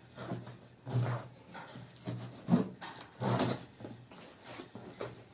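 Cardboard box and plastic packaging handled while a MIDI keyboard is unboxed: irregular rustling and knocks, the loudest at about one, two and a half and three and a half seconds in.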